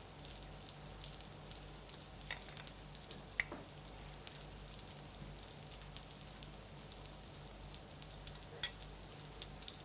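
Faint steady hiss with a low hum under it, broken by a few light clicks of a spoon against a plate as food is scooped up and eaten.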